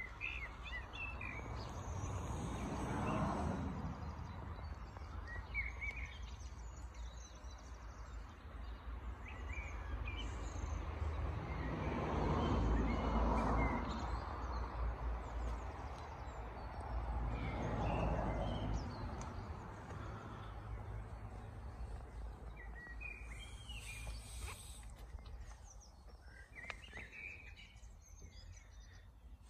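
Outdoor ambience: a low rumbling noise that swells three times, with scattered short bird chirps.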